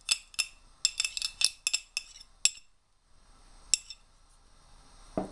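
A metal fork clinking and scraping against the rim and sides of a glass bowl while mayonnaise dressing is scraped out of it. There is a quick run of sharp clinks over the first two and a half seconds, one more clink about a second later, and a dull knock near the end.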